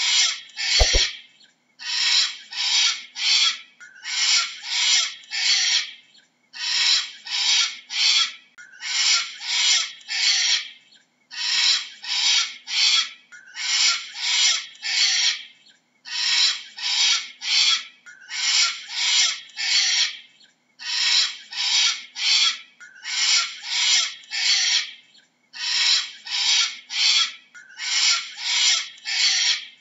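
Cockatoo screeching: harsh screeches in clusters of three or four, a new cluster about every two seconds.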